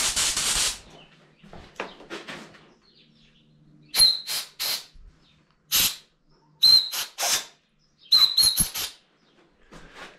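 Compressed-air blow gun on a shop air hose: one hiss about a second long, then after a pause a quick run of about nine short blasts, several starting with a brief whistle. The air is blowing aluminium chips out of a freshly tapped thread in a Honda CRF450 cylinder head.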